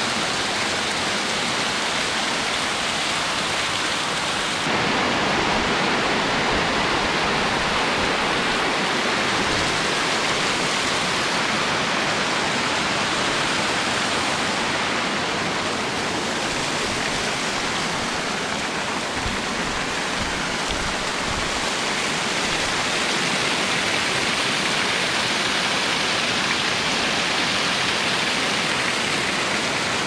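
Waterfall spilling down a limestone rock face and splashing into the pool below: a steady rush of falling water that gets a little louder about five seconds in.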